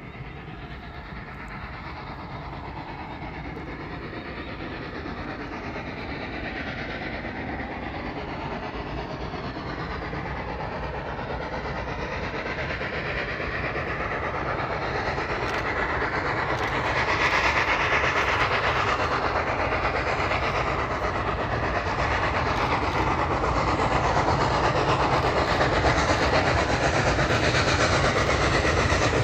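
A train approaching on the rails, its running noise growing steadily louder, then staying loud as it runs close by from a little over halfway in.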